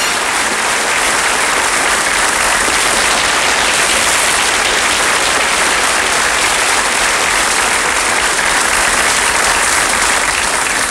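Large studio audience applauding, a steady, even clapping throughout.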